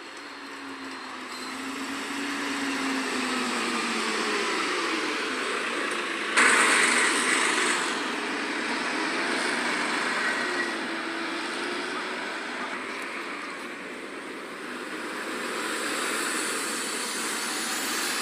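City bus pulling in to a stop, its engine note rising and falling, with a sharp loud hiss of air about six seconds in. A second bus drives past near the end.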